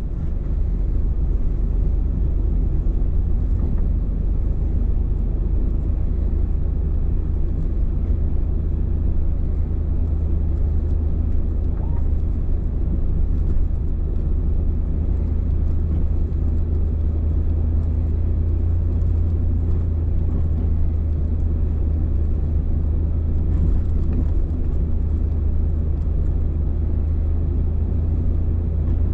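Truck driving along a snow-covered road, heard from inside the cab: a steady low rumble of engine and tyres.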